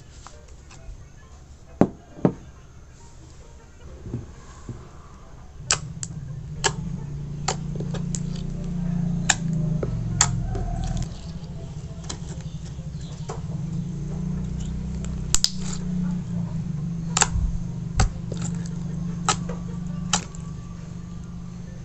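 Pink slime being poked and squashed by hand on a cutting mat, giving scattered sharp clicks and pops, with a low steady hum underneath from about six seconds in.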